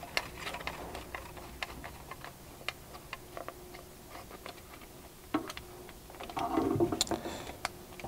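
Small clicks and ticks from a T25 Torx driver and plastic parts as the screws are worked out of a Jeep Wrangler JL's factory third brake light, with a louder stretch of scraping and rustling handling noise about six and a half seconds in.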